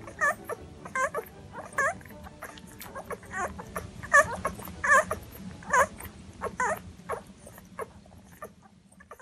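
Newborn German Shorthaired Pointer puppies squeaking and whimpering while they nurse: short, high squeaks, one or two a second, growing fainter near the end.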